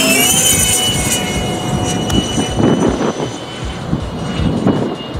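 Electric ducted-fan (impeller) engine of a 12S fibreglass Spark RC jet flying past with a high-pitched whine over rushing air. The whine rises in pitch right at the start, then holds steady.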